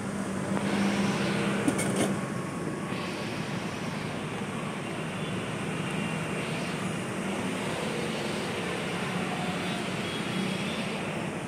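Street traffic noise, with several passing vehicles swelling and fading, and two sharp clicks about two seconds in.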